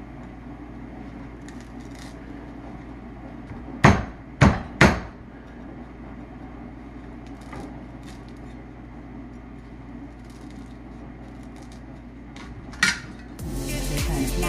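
Meat cleaver chopping into the husk of a young coconut: three sharp chops in quick succession about four seconds in, a single chop near the end, and lighter taps between. Music comes in just before the end.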